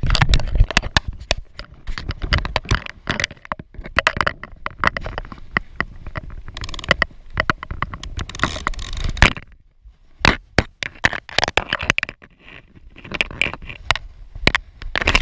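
Close handling noise: clothing, hands and grass rustling and scraping right at the microphone, with many sharp crackles, as an angler crouches over a trout on the grass and works a cloth tape measure. There is a brief lull about two-thirds of the way through.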